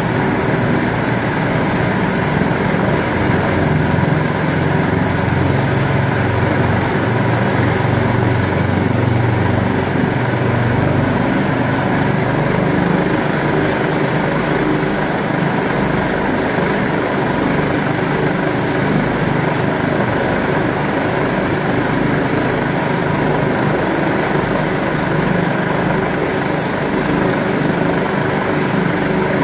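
Rega rescue helicopter running on the ground with its rotors turning: a steady turbine whine over the rotor and engine noise. The low drone is a little stronger in the first ten seconds or so.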